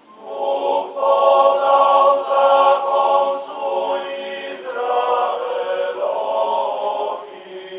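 A chorus of men's voices singing two long, held phrases together. The singing starts just after the beginning, changes pitch about halfway through, and fades out near the end.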